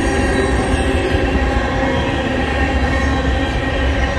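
Loaded tank cars of a freight oil train rolling past: a steady rumble of steel wheels on the rails, with thin, steady wheel-squeal tones over it.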